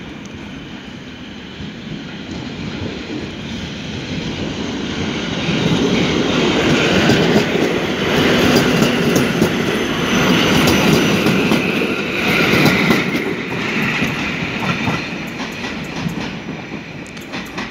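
EN57 electric multiple unit pulling away and passing close by. Its sound builds, is loudest for several seconds as the cars go past with wheels clacking over the rail joints, then fades as it moves off.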